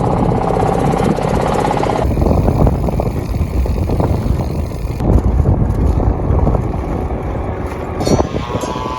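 Wind buffeting the microphone on a moving bicycle, a heavy, unsteady low rumble that changes abruptly about every three seconds.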